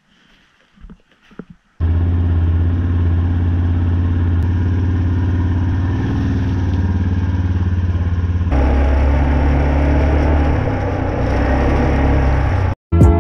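Four-wheeler (ATV) engine running with a steady low note. It comes in suddenly about two seconds in, and its note changes about eight and a half seconds in, as on the move.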